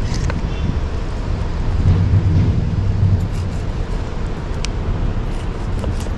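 Steady low rumbling noise, with a few faint clicks as a large knife cuts through a scaled fish onto a wooden chopping board.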